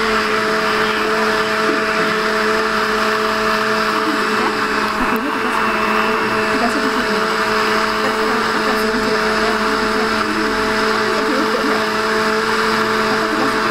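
Electric countertop blender running steadily, blending chopped dragon fruit with sugar and water into juice: an even motor whine with a constant hum under it.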